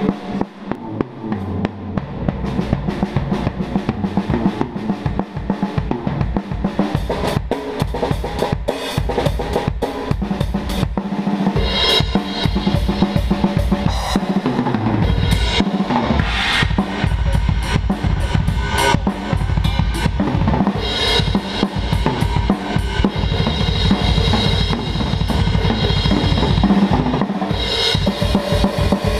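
Full drum kit played as a continuous groove around the whole kit: kick drum, snare and cymbals, with cymbal crashes now and then.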